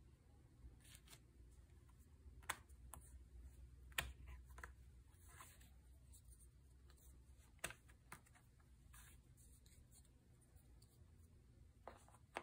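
Cardboard tiles and tokens being pressed out of a board game punchboard by hand: faint rustling of card with a few sharp snaps as pieces pop free, the loudest about four seconds in.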